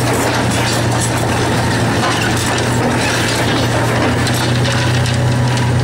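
Hydraulic demolition crusher's jaws crushing reinforced concrete: irregular cracking and crunching of breaking concrete over the steady drone of the excavator's diesel engine working under load.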